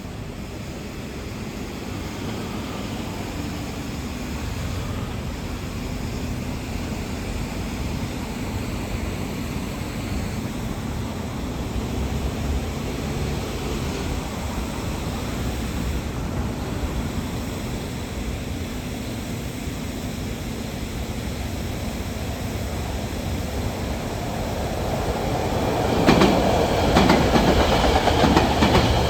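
Metro-North push-pull passenger train of Shoreliner coaches rumbling along the Park Avenue tracks, growing steadily louder as it nears. From about three seconds before the end it is much louder, with wheels clacking over rail joints.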